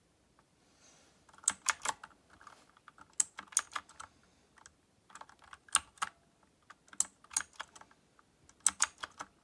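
Keys of a MageGee 75% mechanical gaming keyboard being typed on in short irregular flurries of clacks, with brief pauses between them.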